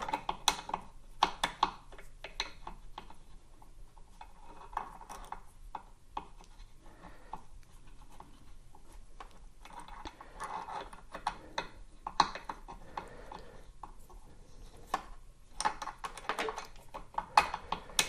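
Hex key turning a grub screw into the pedal hinge of a KingSong KS18XL electric unicycle: irregular light metallic clicks and short scrapes, coming in denser runs in the second half.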